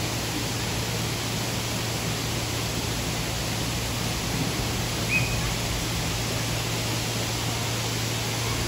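Steady rushing background noise with a low hum underneath, and one brief high chirp about five seconds in.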